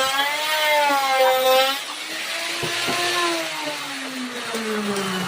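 Electric power tool motor whining under varying load for about two seconds, then released and winding down, its pitch falling steadily to the end.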